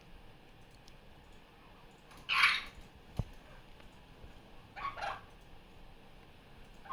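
Barraband parakeet (superb parrot) giving one loud, harsh call about two seconds in, a short sharp tap just after, and a quieter double call about five seconds in.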